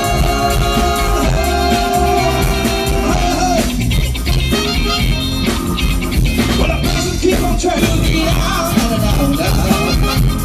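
Live band playing an up-tempo funk-rock groove on electric guitar, bass, keyboards and drums, with a group of singers holding sung lines over it.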